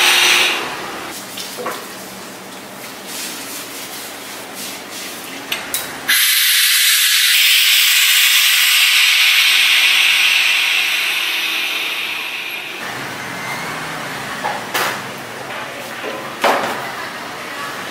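Pneumatic tofu press hissing compressed air for about six seconds. The hiss starts abruptly about six seconds in and then dies away. A few sharp knocks come before and after it.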